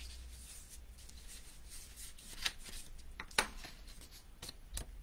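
Sheet of cardstock being folded and creased along its scored lines: paper rubbing and crackling, with three sharp clicks of the card snapping, the loudest about three and a half seconds in.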